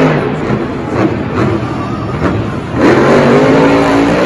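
Monster truck engine running, then revving up with a sharp rise in pitch about three seconds in and holding high.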